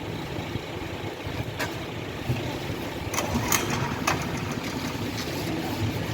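Heavy diesel machinery running steadily at an asphalt paving job, with a few short sharp knocks at about a second and a half and again between three and four seconds in.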